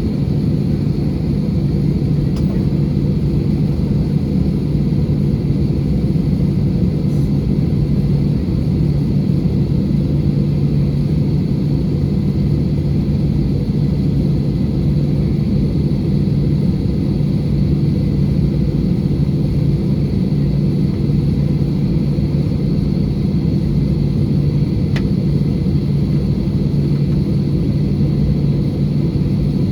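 Steady cabin noise inside an Airbus A320 with its engines running: an even low rumble with a constant hum and a faint high whine above it.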